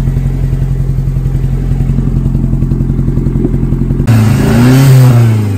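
Toyota MR2's engine idling with a steady, pulsing note. About four seconds in, it gives way suddenly to the engine note rising and then falling, with a rush of wind or road noise.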